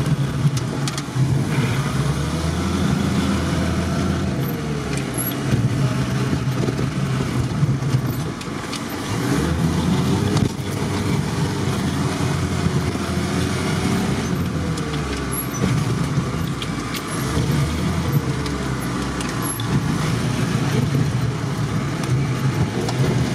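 UAZ-469 engine heard from inside the cab, pulling the 4x4 slowly through deep snow, its note rising and falling every few seconds as the throttle is worked.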